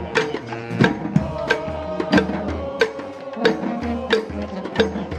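Street band of brass and drums playing. Loud drum hits keep a steady beat of about one every two-thirds of a second over low held bass notes and higher melody lines.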